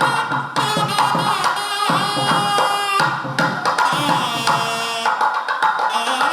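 Music with drums keeping a quick rhythm under a melody line that bends and wavers in pitch.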